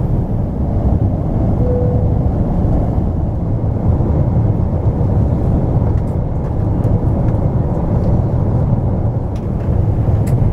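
Steady cabin noise of a Boeing 777 airliner in flight: an even, deep rumble of engines and airflow heard from an economy seat.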